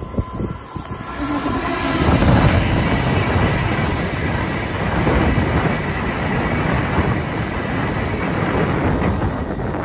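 c2c Class 357 Electrostar electric multiple unit passing close by, a rush of wheels on rail. It swells about two seconds in and stays loud as the carriages go past.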